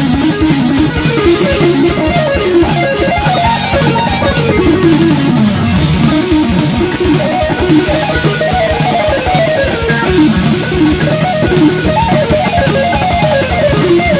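Electric guitar playing fast picked runs of notes that climb and fall, over a backing track with a steady, quick drum beat.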